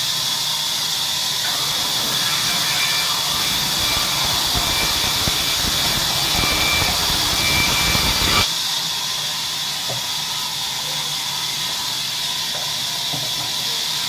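Sawmill band saw running with a loud steady hiss as a log is fed through the blade. A rougher, lower cutting sound with faint squeals comes in about a second and a half in and stops abruptly about eight and a half seconds in.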